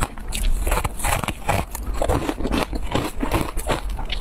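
Close-miked eating: biting and chewing a soft cake coated in dry crumbs, with a dense run of irregular crackling and crunching.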